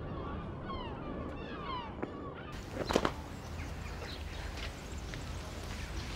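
Seagulls calling, a run of short falling cries over a low steady rumble. The sound then cuts to quieter outdoor ambience, with one sharp knock about three seconds in.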